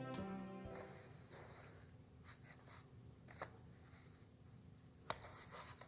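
Background music dies away in the first second. Then comes near-quiet room tone with faint rustles and light ticks of small-object handling, and one sharper click about five seconds in.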